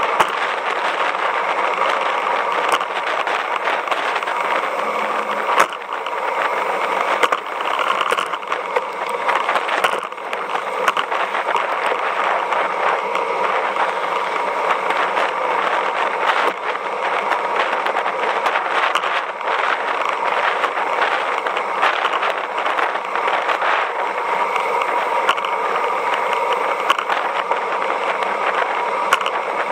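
Steady rushing wind and tyre noise of a road bicycle riding at speed, heard through a camera mounted on the bike, with occasional sharp knocks from bumps in the road.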